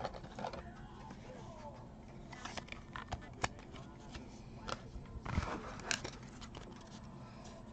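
Faint clicks and rustles of trading cards and their clear plastic holders being handled and set down, a scatter of small ticks with a few sharper clicks in the middle of the stretch.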